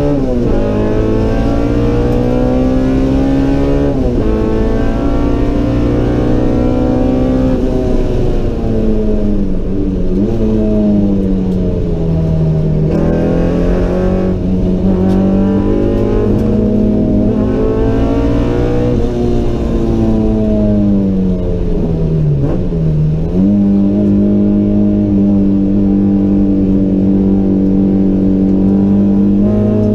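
Stroked 1.9-litre Honda B18C four-cylinder with race cams and a custom header, heard inside the stripped cabin of a Civic EG6 driven hard on track. It revs up, drops in pitch at gear changes, falls away over several seconds when lifting off and braking for corners, holds steady revs for a few seconds, and rises again near the end.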